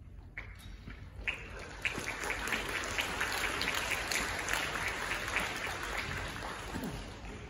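Audience applauding in a concert hall: a few scattered claps swell quickly into full applause, then die away near the end.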